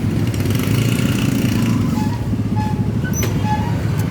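Yamaha RX-King's two-stroke single-cylinder engine running steadily, a fast even putter.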